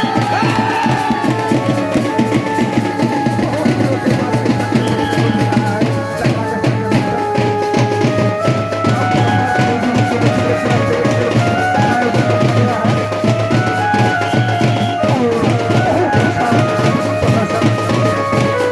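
Music with fast, steady drumming under a melody of held notes that step up and down in pitch.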